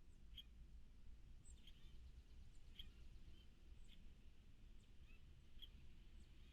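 Faint short, high bird chirps, repeated about once or twice a second at uneven intervals, over a low steady background rumble.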